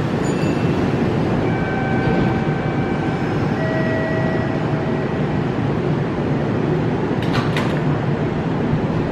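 Kintetsu electric train standing at the platform, its on-board equipment giving a steady low hum. A few held chime-like tones sound one after another in the first half, and a short clatter of knocks comes about seven seconds in.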